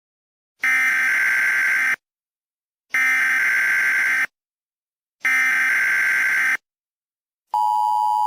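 Emergency Alert System SAME header: three buzzy bursts of digital data tones, each just over a second long with about a second of silence between them. About 7.5 s in, the steady two-tone EAS attention signal starts, which announces the alert message.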